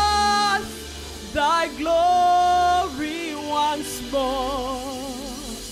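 A woman singing a slow gospel worship song solo over a soft, sustained instrumental backing. A long held high note ends about half a second in, short phrases follow, and near the end comes a wavering held note with vibrato.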